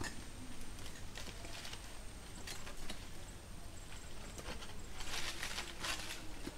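Irregular scrapes and knocks of a climber's claw-soled anti-slip shoes and body against tree bark while climbing a tree trunk, busiest about five to six seconds in.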